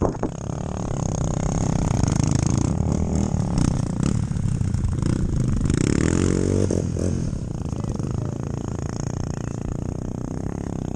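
Honda Tornado trail motorcycle's single-cylinder engine running, with one rev that rises and falls about five to seven seconds in.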